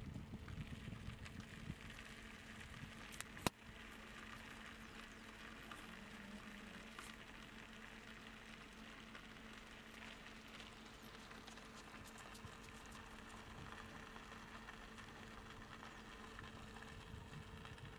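Faint background ambience: a low steady hum under a light hiss, with a single sharp click about three and a half seconds in.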